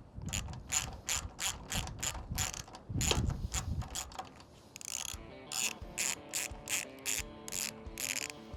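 Ratchet wrench clicking steadily as a screw is backed out, about four clicks a second, slowing to a few spaced clicks in the second half.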